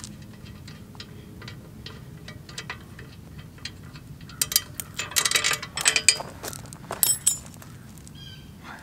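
Light metallic clicks and clinks of a small steel bolt and nut being worked loose by hand and handled, clustered from about halfway in, a few ringing briefly; it is the retaining bolt coming off a backhoe bucket pin.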